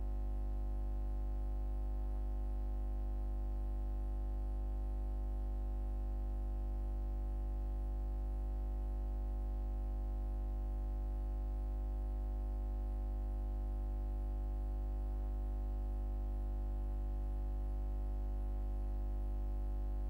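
A steady low electrical hum with its overtones and no other sound; the old film itself carries no recorded sound.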